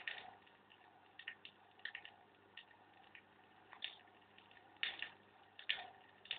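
Vinyl LP playing on a turntable in the quiet groove between tracks: faint surface hiss with scattered clicks and pops, about two a second, before the next song starts right at the end.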